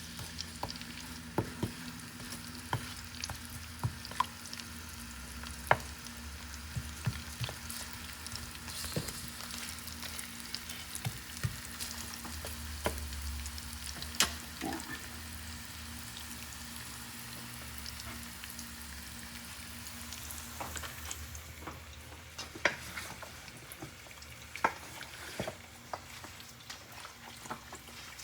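Chopped onions frying in hot oil in a pot: a steady sizzle with scattered pops and crackles, and clicks from being stirred.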